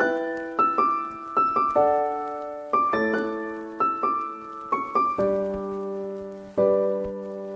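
Background piano music: slow, gently struck chords and single notes, each left to ring and fade.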